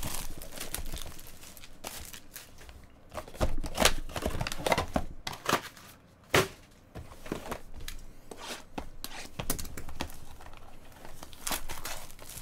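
Clear plastic wrapping crinkling and tearing in irregular crackles and rustles as a trading card box is unwrapped and handled by hand, with a sharper snap about halfway through.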